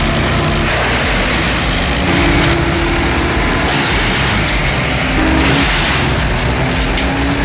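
A heavy machine's engine running steadily under load, its pitch rising slowly in places.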